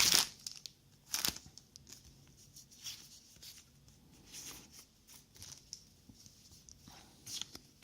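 Handling of Z/X trading card booster packs and cards: a couple of sharp crinkles of a foil pack wrapper near the start, then soft intermittent rustling and sliding of cards.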